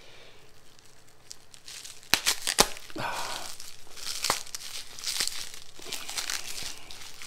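A heavily taped parcel being cut and torn open: crinkling and tearing of fibre-reinforced packing tape and wrapping, with a few sharp clicks a little over two seconds in.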